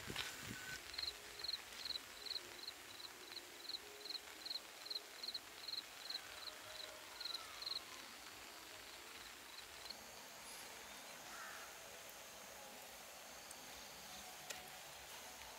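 Short high chirps, each doubled, repeated about twice a second for some seven seconds, stopping about eight seconds in. Under them is a faint steady outdoor hiss.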